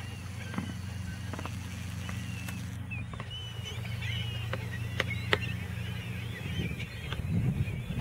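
A large flock of gulls calling, many short overlapping calls throughout, over a steady low hum. A few sharp clicks come about five seconds in, and a low rumble rises near the end.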